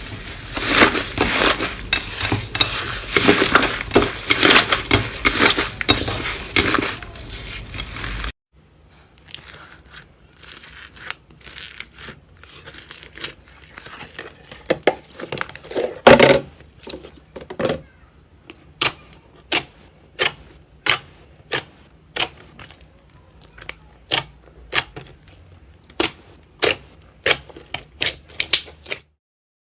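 Slime being squeezed and played with by hand, crackling and popping. A dense run of crackles stops abruptly about eight seconds in. After that come quieter squishes with scattered pops, and then evenly spaced sharp pops, a little under two a second, in the last ten seconds.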